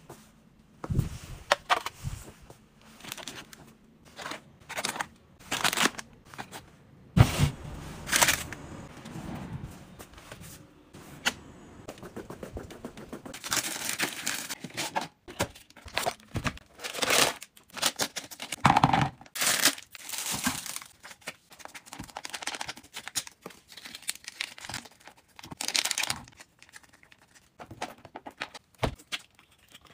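Plastic snack packaging crinkling and being torn open, in irregular rustles and crackles.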